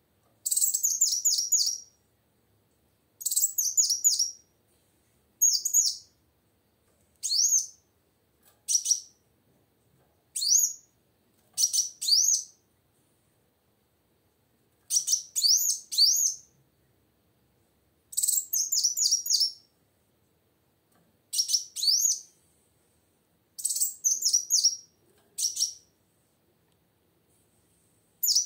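Female kolibri wulung (a sunbird) calling: about a dozen short bursts of rapid, high-pitched twittering chirps, separated by brief silent pauses.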